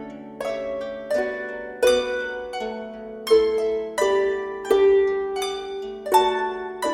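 Harp playing a slow, calm melody, single plucked notes and chords that start sharply and ring on as they fade, each overlapping the next.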